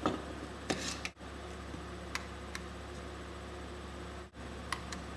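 A few faint, scattered clicks and taps from handling the smoke detector's plastic housing and circuit board with tools, over a steady low hum. The sound drops out for an instant twice.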